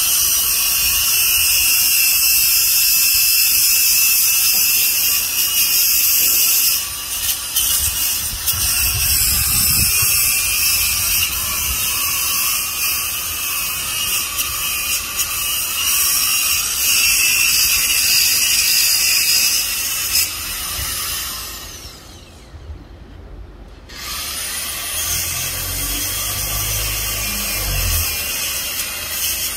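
Angle grinder running against the metal housing of a Yaskawa SGMG-44A2A AC servo motor, a steady high-pitched grinding whine. About two-thirds of the way through it eases off and goes quiet for about two seconds, then runs up and grinds again.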